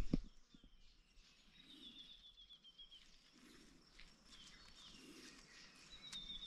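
A bird calling twice, each call a quick run of notes lasting about a second and falling slightly in pitch, faint against quiet outdoor background.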